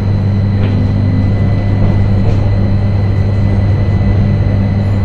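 AnsaldoBreda tram's variable-frequency traction drive and running gear heard from the driver's cab at a steady speed: a constant low hum with a faint steady high whine over the rumble of wheels on rail.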